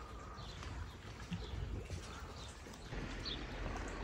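Footsteps of a walker on a path, soft irregular steps, over outdoor ambience with a few faint bird chirps.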